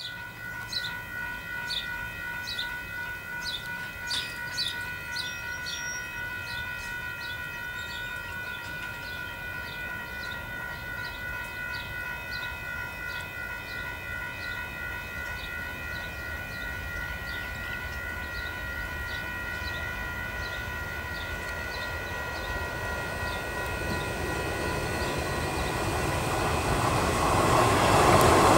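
Level-crossing alarm bells ringing steadily at about two strikes a second as a KiwiRail DFT-class diesel-electric locomotive approaches with a log train. The locomotive's engine and wheels grow steadily louder over the last several seconds as it draws close.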